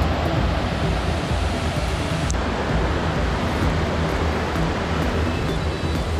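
Wind buffeting the microphone of a mountain biker's GoPro while riding: a steady rushing noise with a heavy, fluttering low rumble.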